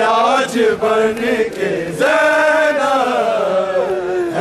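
Men's voices chanting an Urdu noha, a Shia lament, unaccompanied. The lines are sung in long held notes with slow slides, and the melody falls toward the end.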